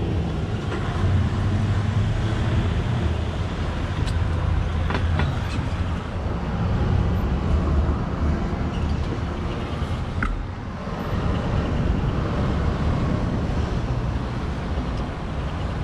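Steady rumble of road traffic, with a few faint clicks about four and five seconds in.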